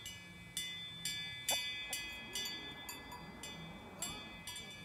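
Bells or bell-like chimes struck over and over, about twice a second at an uneven pace, each strike ringing on in several steady high tones.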